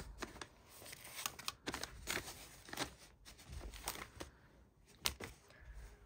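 New clothes and their tags and packaging being handled and shuffled: soft rustling with scattered crackles and a few sharp clicks, the sharpest about five seconds in.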